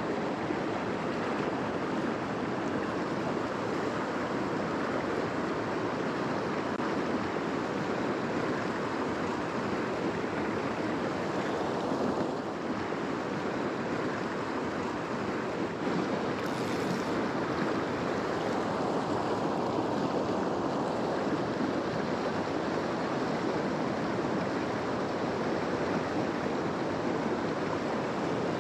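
Steady rush of a river running over rocks and riffles.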